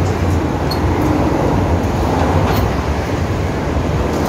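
Steady noise of heavy road traffic on a multi-lane highway, cars, vans and taxis passing below, with a strong low rumble.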